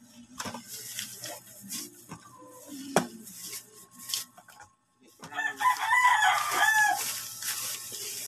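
A rooster crowing for about two seconds, starting a little after five seconds in. Before it comes light clatter of things being set down on a table, with a sharp knock about three seconds in.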